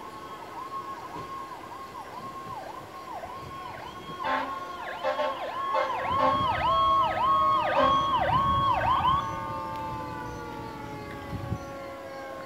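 Fire apparatus sirens sounding as the vehicles respond. A high electronic siren tone dips about twice a second, and a second siren joins about four seconds in. Both are loudest until they cut off about nine seconds in, leaving a siren wail that slowly falls in pitch as it winds down.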